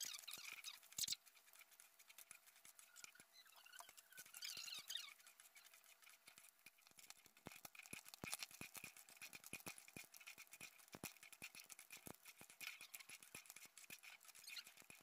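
Pork skin and fat pieces frying quietly in a metal wok, giving scattered small pops and crackles as they render their fat. A metal ladle stirs and scrapes the wok briefly near the start and again about four to five seconds in.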